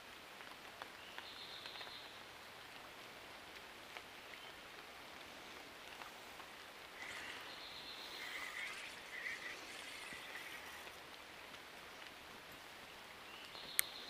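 Light rain falling on a creek's surface, a faint steady hiss. A few faint high calls come about a second in and again from about seven to eleven seconds in, and there is one sharp click just before the end.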